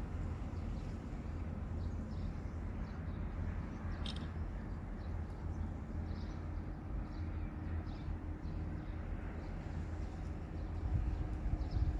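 Outdoor ambience: a steady, uneven low rumble with many faint, short bird chirps scattered through it.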